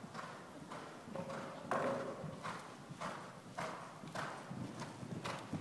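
A horse's hoofbeats as it canters on the soft footing of an indoor arena, a beat about every half second.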